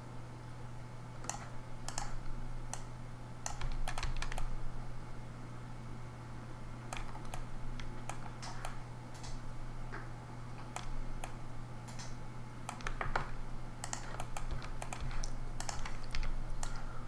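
Computer keyboard keys and mouse buttons clicking irregularly, in scattered single clicks and short runs, over a steady low hum.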